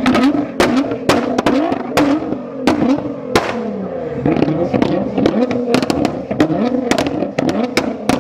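Nissan GT-R's twin-turbo V6 revved in quick blips over and over, its exhaust crackling and banging with many sharp pops on each lift-off.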